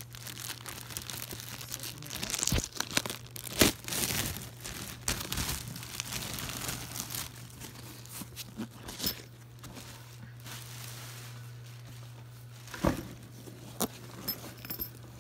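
Thin clear plastic packaging bag crinkling and tearing as a camera backpack is pulled from it, with irregular sharp crackles, busiest and loudest in the first four seconds and sparser after.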